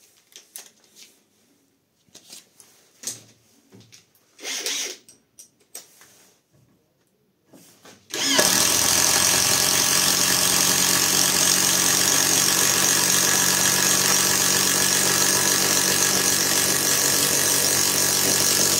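Catpower 4226 cordless impact tool boring a hole in an old wooden beam with a 22 mm Bosch Self Cut spade bit. It starts about eight seconds in and runs loud and steady. Before that come a few light clicks and rustles as the bit is fitted.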